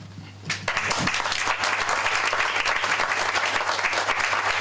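Audience applause breaking out about half a second in, with many hands clapping steadily.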